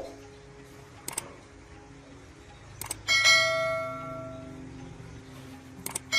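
A steel truck part struck sharply, ringing out like a bell for about a second and a half, a few seconds in; small metallic clicks and a light knock come before it.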